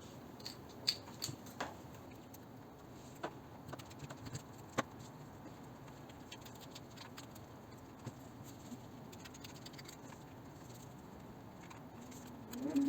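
Scissors snipping kinesiology tape into pieces: a handful of faint, separate clicks and snips, spaced a second or so apart, in the first half.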